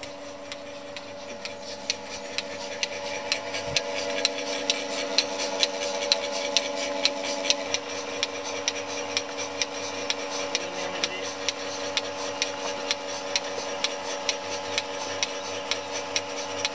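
Portable bucket milking machine running: a steady hum from its vacuum pump, with the pulsator clicking in a regular rhythm, about two to three clicks a second, that comes up about two seconds in.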